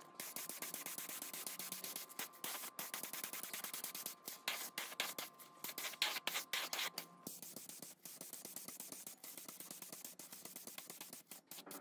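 Air-fed paint spray gun hissing in short, uneven spurts as paint is sprayed onto metal fan parts.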